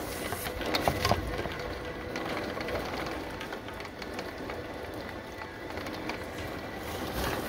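Heavy rain falling steadily, a dense even hiss with a few sharp knocks about a second in.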